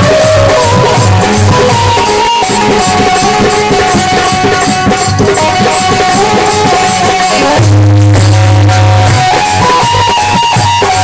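Live Indian folk music: a harmonium playing a melody of held reed tones over a steady rhythm of hand strokes on a dholak. About two-thirds of the way through, a long low note is held for a second or so.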